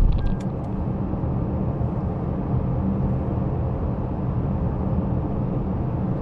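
Steady low rumble of a vehicle running, with a few short clicks right at the start.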